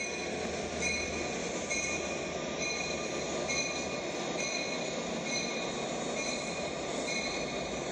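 Train running past: a steady rolling noise with high ringing tones that pulse a little more than once a second, and a low hum that fades out about halfway through.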